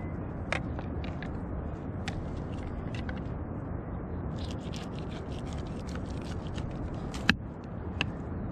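Steady roar of sea surf, with scattered small scrapes and clicks of knife work on fish over it, busiest about halfway through, and one sharp knock a little after seven seconds in.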